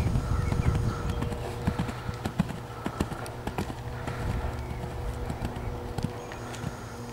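Hoofbeats of a bay horse trotting loose on a sand arena surface, an uneven series of dull thuds.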